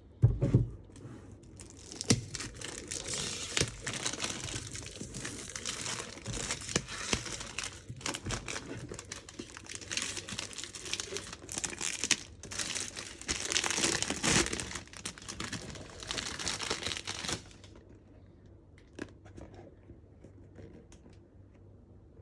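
A thump just after the start, then the plastic wrapping of a perfume box being torn open and crumpled by hand, a dense crackling that stops suddenly about 17 seconds in, followed by a few faint handling ticks.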